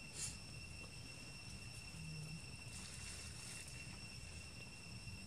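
Insects chirping steadily, a continuous high-pitched tone, with a brief rustle just after the start.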